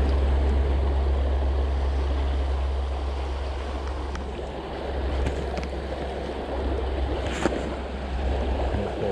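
Fast river water rushing over a shallow, broken riffle: a steady rushing noise with a low rumble underneath, and a few faint clicks partway through.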